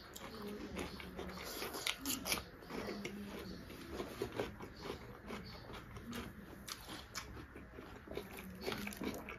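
Close-miked chewing and eating by hand: wet mouth clicks and smacks with some crunching, in an irregular run of short sounds.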